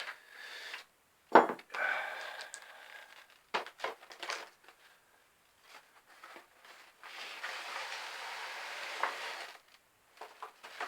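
A parcel holding a drawing board being handled and opened: a sharp knock about a second in, rustling of packaging, a few light taps, then a steady rasp lasting about two and a half seconds near the end.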